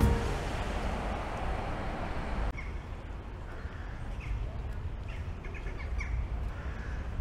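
City street ambience: a steady low traffic hum, with small birds chirping briefly several times over the second half.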